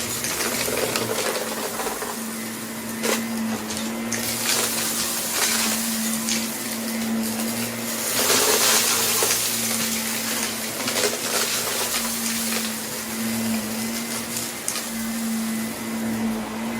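Vacuum cleaner running steadily: a constant motor hum under the rush of air, rising in surges every few seconds, with a few brief clicks and rattles.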